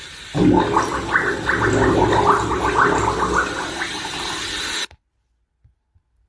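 Farts bubbling up through bathwater, a continuous choppy gurgling that cuts off suddenly about five seconds in.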